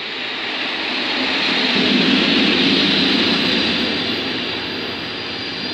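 Electric locomotive and its passenger coaches passing along the platform. The rumble of wheels on rail swells to a peak about two seconds in, then eases as the coaches roll by.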